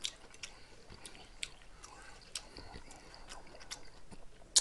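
A person chewing a mouthful of chicken stir-fry, with scattered light clicks and a sharper click near the end.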